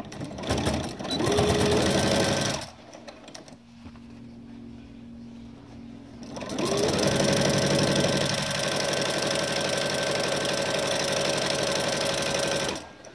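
Electric sewing machine stitching a fabric casing in two runs. The first is a short run that speeds up and stops after about two seconds. After a pause, the second speeds up and holds steady for about six seconds before stopping near the end.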